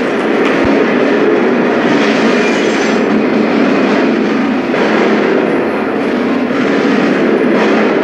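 Film soundtrack of sustained automatic rifle fire in a street shootout, played loud over a hall's speakers and picked up by a microphone in the room. The rapid shots blur into one continuous loud rattle.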